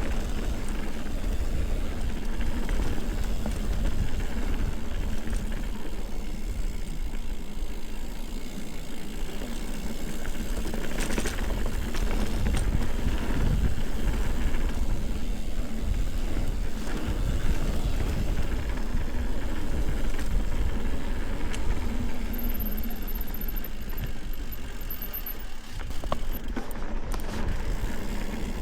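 Ibis Ripley full-suspension mountain bike riding along a dirt trail: steady tyre noise over dirt with low rumble and occasional knocks and rattles from the bike.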